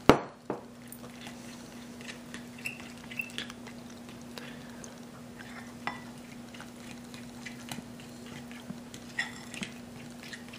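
Metal fork stirring chickpea flour and water into a batter in a glass bowl, with light scrapes and small clinks against the glass throughout. A sharp knock opens it, followed by a smaller one half a second later. A steady low hum sits underneath.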